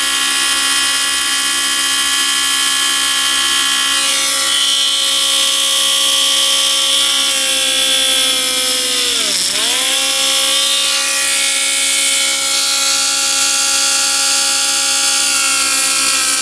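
Small handheld rotary drill running steadily with a whine as it drills holes through polymer clay beads; the pitch dips sharply for a moment about nine seconds in, then recovers.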